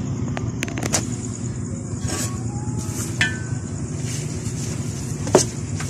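Light clicks and taps of string beans and okra being handled on a tabletop, with one sharper knock about five seconds in, over a steady low background rumble.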